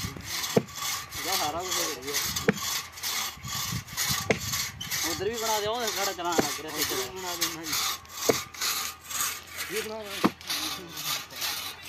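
Long hand saw cutting through a felled tree trunk in steady back-and-forth rasping strokes. A sharp knock comes roughly every two seconds, and at times a wavering tone rises and falls over the sawing.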